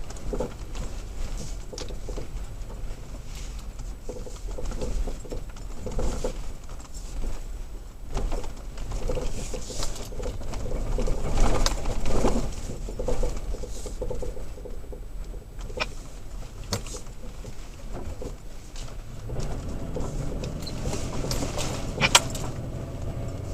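Toyota Tacoma driving slowly over a rough dirt road, heard from inside the cab: a steady low engine and drivetrain drone with frequent knocks and rattles as the truck bumps along, and one sharp knock near the end.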